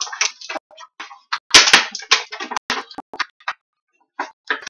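Crinkling and rustling of clear plastic packaging handled by rubber-gloved hands, in irregular crackly bursts with small clicks, loudest about one and a half seconds in.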